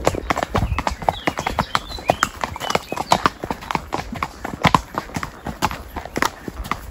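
Ridden horses' hooves clopping on a dirt trail: a quick, uneven run of hoofbeats.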